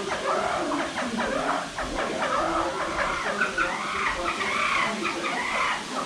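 Several plain chachalacas calling at once: a dense chorus of rapid, overlapping chattering calls that never pause.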